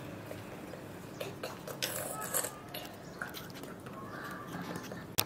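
Soft hand-handling sounds at a table: dough being shaped and set down, with light rustles and scrapes over a steady background hum, and one sharp click just before the end.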